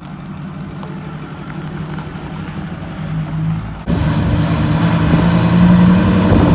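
Diesel engine running steadily. About four seconds in it cuts abruptly to a louder, steady run.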